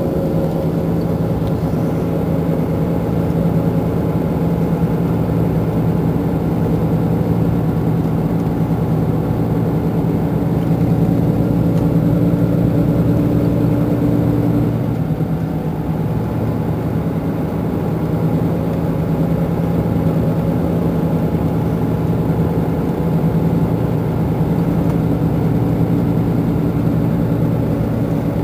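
Mercedes-Benz Intouro bus's diesel engine idling steadily while the bus stands at a stop. A higher steady hum above the idle stops about halfway through.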